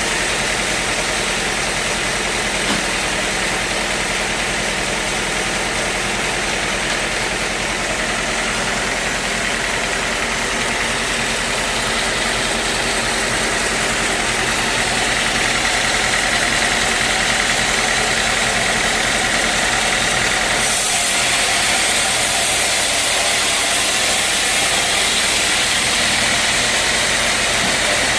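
Sawmill machinery running steadily with an engine-like hum. About two-thirds of the way through the sound changes abruptly and turns hissier.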